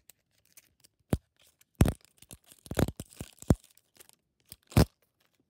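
Plastic wrapper layer of an L.O.L. Surprise ball being peeled and torn open by hand: a series of sharp crackles and snaps, about five louder ones, with crinkling in between. The layer is hard to get open.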